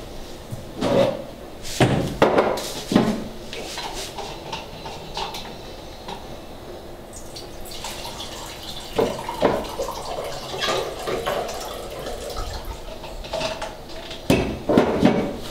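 Water running and splashing at a kitchen sink, with irregular clinks and knocks of dishes and utensils being handled.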